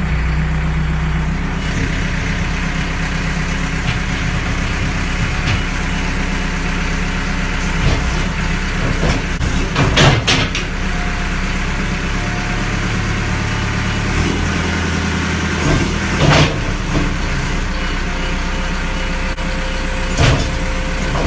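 Backhoe's diesel engine running steadily, with several sharp clanks and knocks from the working machine, the loudest about ten seconds in.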